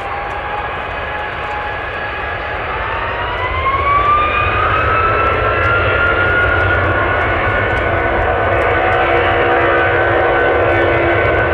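An Icelandair Boeing 757's Rolls-Royce RB211 jet engines spooling up to takeoff power for the takeoff roll. A whine rises in pitch over the first several seconds, then holds steady, and the engine noise grows louder about four seconds in.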